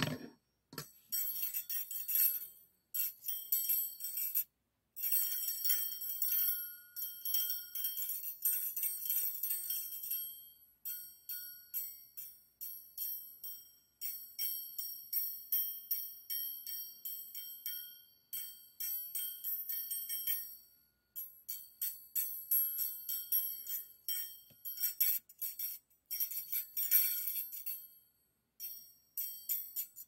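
Two stainless steel wire beaters from a hand mixer clinking and rattling against each other in quick runs of light metallic taps, each with a high ringing tone, with a few brief pauses.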